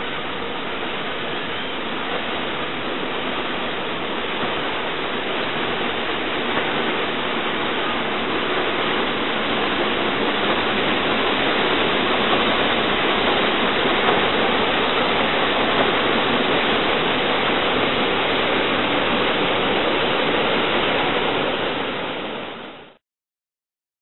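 Paddle wheels of the paddle steamer Stadt Rapperswil churning the lake water as the boat gets under way: a steady rushing splash that grows slowly louder, then fades out quickly near the end.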